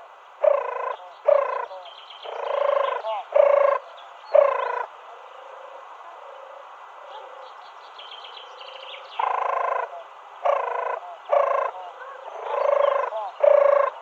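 Turtle dove cooing in repeated phrases, each a longer coo followed by several short ones. The cooing stops for about four seconds midway, then resumes at around nine seconds. Faint chirps of small birds sound in the background.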